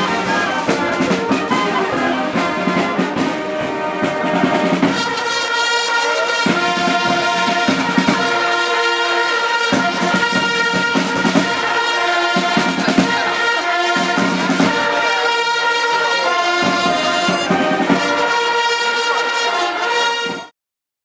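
Brass band playing, with held notes changing from phrase to phrase; it cuts off suddenly near the end.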